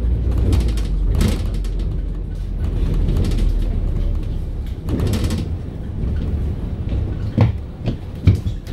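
Volvo B5LH hybrid double-decker bus on the move, heard from inside the cabin: a steady low drivetrain and road rumble, with short bursts of hiss about a second in and about five seconds in, and two knocks near the end.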